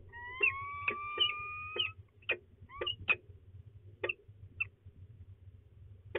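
Peregrine falcons calling in the nest box. A drawn-out, slightly rising whining call of about two seconds is run through with short sharp chipping notes, and more single chips follow at uneven gaps.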